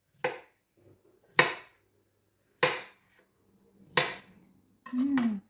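Kitchen knife chopping through dragon fruit flesh onto a plastic cutting board: four sharp chops about a second and a quarter apart.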